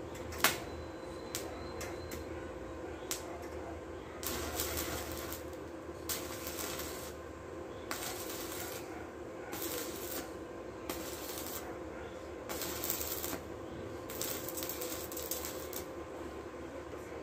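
Stick arc welding with coated electrodes on thin sheet steel: the arc crackles in short bursts of about a second, again and again, as tack welds are laid along the truck-cab floor panel. A steady low hum sits underneath throughout.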